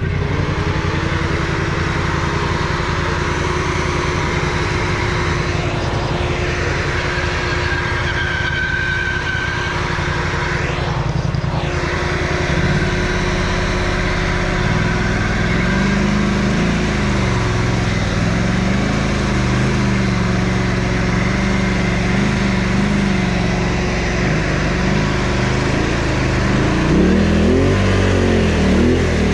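Quad (ATV) engine running under way, steady at first, then revving up and down repeatedly with the throttle from about halfway through.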